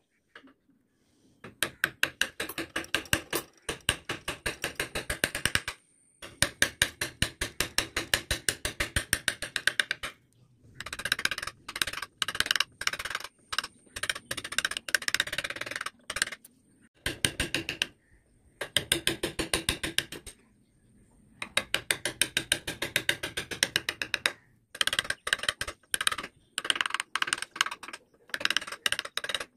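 Hand carving chisel cutting into softwood, a quick, even ticking in runs of a few seconds broken by short silent pauses.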